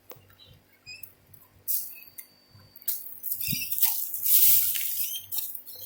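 Soil being dug and scraped through by hand in a potato container: scratchy rustling and scraping, a few short scrapes at first and then a denser, louder stretch over the second half.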